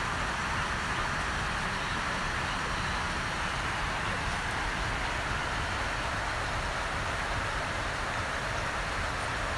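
Steady, even rushing background noise at a constant level, with no distinct events in it.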